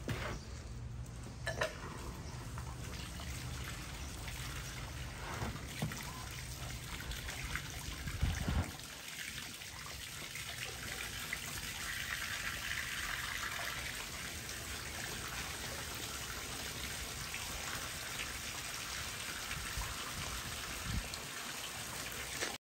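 Water running steadily for a pet monkey's bath, with a few soft knocks.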